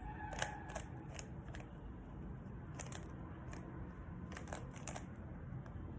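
Plastic Rubik's Cube being turned by hand: a scatter of short clicks as its layers snap round, in quick runs in the first second or so and again about four to five seconds in.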